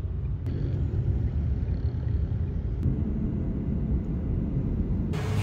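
Low, steady rumble of road traffic and car engine noise.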